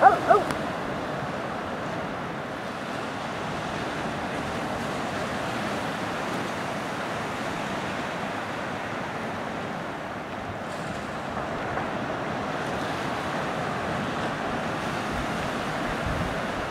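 Ocean surf washing steadily onto a sandy beach, with wind rumbling on the microphone. A short pitched call sounds right at the start.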